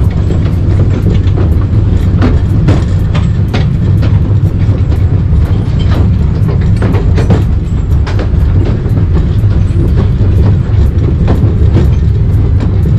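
Taipingshan Bong-Bong narrow-gauge mountain train under way: a loud, steady low rumble with frequent, irregular clacks and rattles of the wheels and open carriages on the track.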